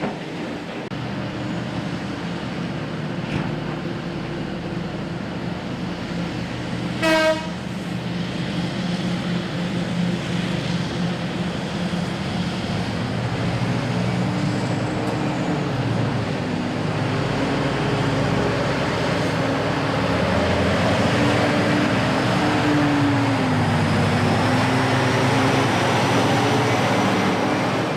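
A bulldozer's diesel engine running steadily under load, growing slowly louder. About seven seconds in there is one short horn toot.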